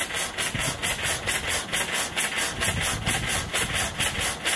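Air-operated diaphragm pump on a gel coat spraying machine cycling, a rhythmic run of hissing puffs about three a second, as it pumps gel coat down the hose to the spray gun.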